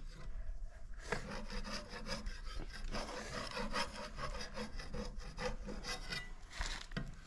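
Repeated hand strokes of a tool rasping across a wooden drawer as the old finish is worked off by hand. The strokes start about a second in and come at an uneven pace.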